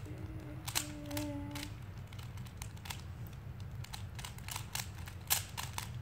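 Plastic Rubik's cube being turned by hand, its layers snapping round in a string of quick, irregular clicks.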